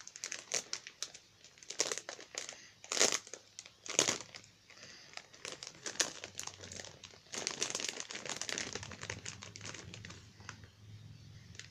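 Clear plastic packaging of a squishy toy crinkling and crackling as it is handled and turned over, in irregular bursts with the sharpest crackles about three and four seconds in.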